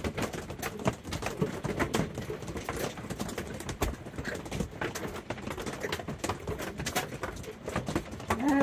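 Hail hitting the roof and shell of a truck camper, heard from inside: a dense, irregular clatter of many small impacts during a long hailstorm. Near the end there is a short voiced sound.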